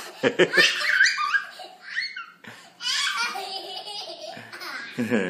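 Hearty laughter in repeated bursts, pausing briefly about two seconds in and starting up again about a second later.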